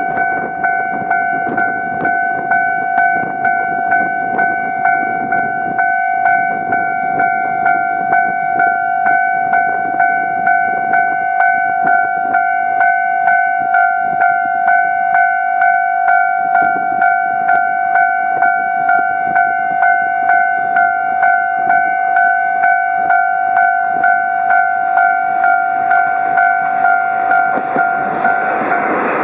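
Japanese level-crossing warning bell ringing steadily, a repeated two-pitched ding about one and a half strikes a second, the signal that a train is approaching. Near the end a rising rush of noise begins under it.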